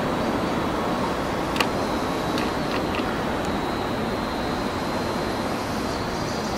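Steady rushing outdoor noise with a low, fluttering rumble, and a few light clicks between about one and a half and three seconds in.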